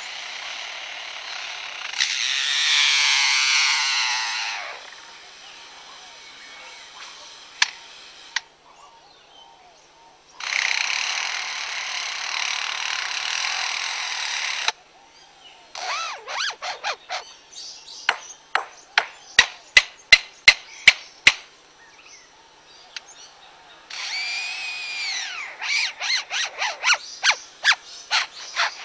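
Lyrebird mimicking construction noises: long bursts of power-tool-like whirring, one with a sweeping whine, then a run of sharp knocks and clicks about three a second, like hammering, and near the end a whine that rises and falls among more clicks.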